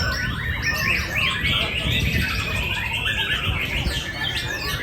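Several caged songbirds singing at once, a dense tangle of overlapping chirps, trills and whistles, over a steady low background rumble.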